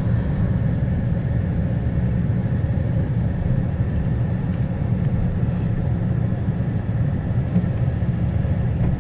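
Steady low rumble of a truck driving along a road, heard from inside the cab: engine and tyre noise.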